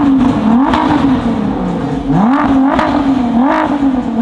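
A performance car engine revved hard on the spot. It is held at high revs, dropping and climbing back about four times.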